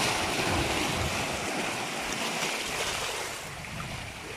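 Steady rushing noise of waves and wind on the microphone, easing slightly about three seconds in.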